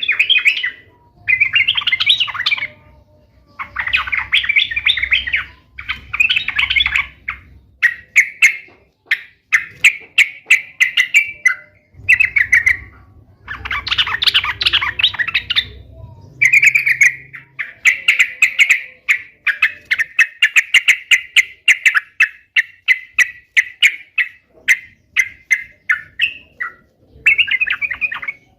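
Yellow-vented bulbul (trucuk) singing in lively chattering phrases: bursts of rapid repeated notes, each phrase lasting one to three seconds, with short pauses between them.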